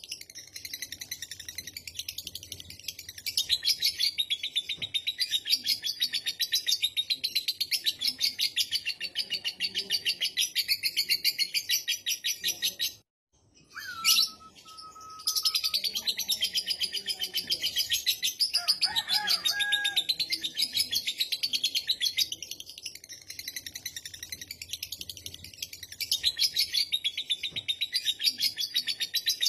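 A lovebird's long 'ngekek' chatter: a very fast, unbroken stream of high-pitched notes. It breaks off for a second or two a little before halfway, with one short gliding note in the gap, then runs on again to the end.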